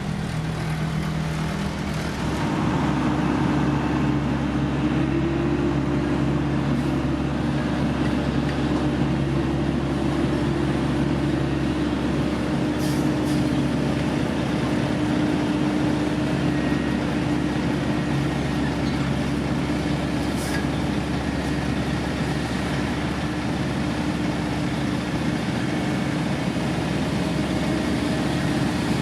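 Heavy diesel engine of road-building machinery running steadily. Its pitch steps up and it gets a little louder about two seconds in.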